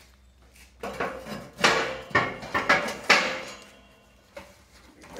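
Steel slats of a CNC plasma table's cutting bed clattering together as they are handled: a quick run of sharp metallic clanks with ringing, from about a second in to about three and a half seconds in.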